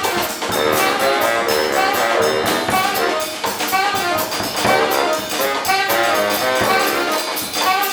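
Jazz with brass horns playing a melody over a steady drum beat.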